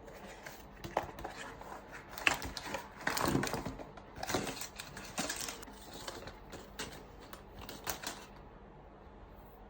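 A phone case's box and packaging being handled and opened: a series of sharp clicks and taps mixed with short rustles and scrapes, which stop about eight seconds in.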